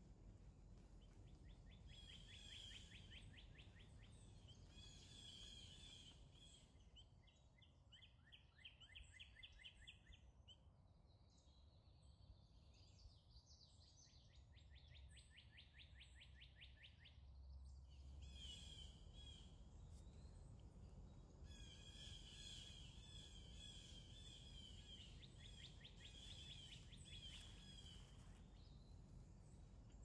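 Faint woodland ambience: repeated high-pitched rapid trills, each a run of fast even pulses lasting a second or two, recurring every few seconds over a low, steady background rumble.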